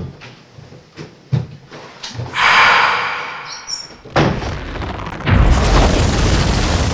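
Footsteps thud on wooden stairs, then a loud hissing rush swells about two seconds in. About four seconds in a sudden bang sets off a heavy low rumble that grows louder and carries on, a ghostly blackout effect.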